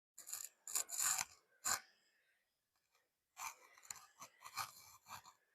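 Irregular short rustling and scraping noises, as of a garment and steamer being handled, with a pause in the middle.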